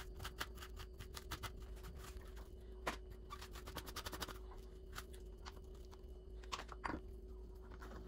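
Metal spoon scraping seeds and stringy pulp out of a raw spaghetti squash half: a quick, irregular run of soft scrapes and clicks, over a faint steady hum.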